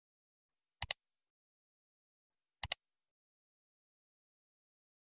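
Two mouse-click sound effects, each a quick double click, about two seconds apart, against dead silence.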